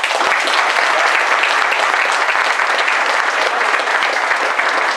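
Audience applauding, many hands clapping together. It starts all at once and holds steady.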